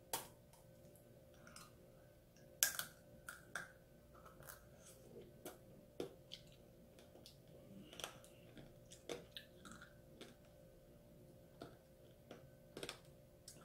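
Chewing of strawberry tanghulu: the hard sugar-candy coating crunches and cracks in a dozen or so irregular sharp bites, the loudest a little under three seconds in.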